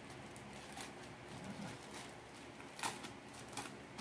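Faint crinkling and rustling of a small plastic packaging bag being handled and opened, with a few sharper crackles, the loudest about three seconds in.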